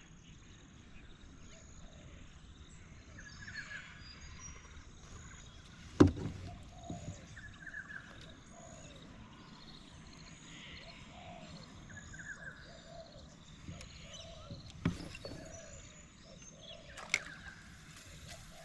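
Quiet outdoor riverside ambience with small birds calling over and over, broken by a sharp knock about six seconds in and two lighter knocks near the end.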